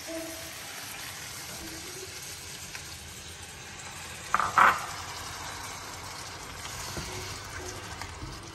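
Giant river prawns sizzling in a frying pan, a steady hiss, broken about halfway through by two sharp knocks close together.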